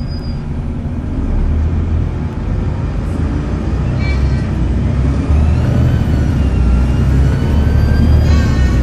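Volvo B7TL double-decker bus's turbocharged diesel engine pulling under load, a deep drone that gets louder as it goes, with a thin high turbo whistle rising in pitch in the second half.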